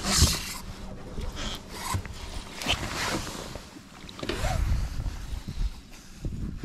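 Close handling noise: a rain jacket's sleeves rustling against the camera and a spinning rod and reel being worked, in irregular scrapes and rustles, with wind rumbling on the microphone.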